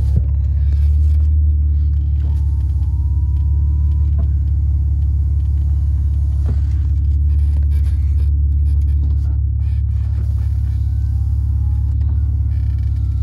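Steady low rumble of engine and road noise heard from inside the cabin of a 1991 Mercedes-Benz 300TE with its 3.4-litre AMG 24-valve straight-six, driving along.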